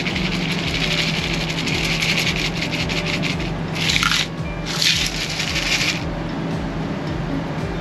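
Martini poured from an ice-filled plastic cocktail shaker into a glass: ice rattling and liquid splashing in three pours, a long one then two short ones, over the steady low hum of the camper's air conditioner.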